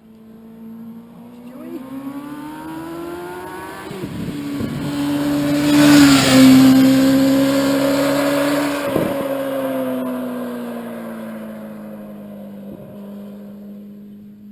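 Sports motorcycle accelerating past under hard throttle, its exhaust note climbing in pitch, with gear changes about 4 and 9 seconds in. It is loudest as it passes about 6 seconds in, then fades into the distance, echoing off the gorge walls.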